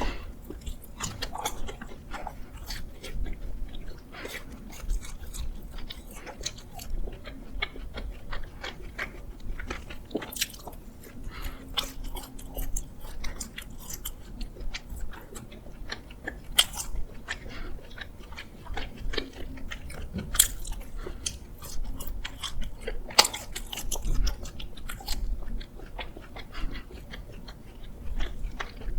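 A person biting into and chewing doughnuts, with many short, sharp mouth clicks and smacks spread throughout.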